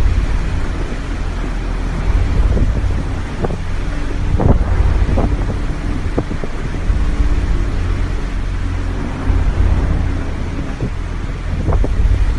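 Storm wind rumbling on the microphone: a heavy, steady low rumble with a few brief louder gusts.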